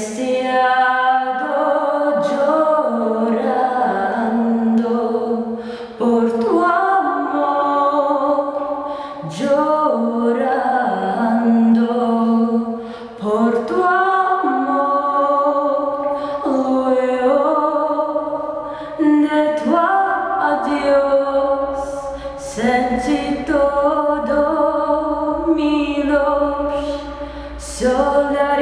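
A young woman singing a slow Spanish-language song a cappella, holding long notes with short breaths between phrases.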